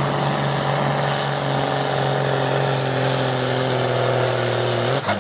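Tractor's diesel engine running flat out under heavy load while dragging a tractor-pulling sled, holding one steady note. The note drops away suddenly near the end.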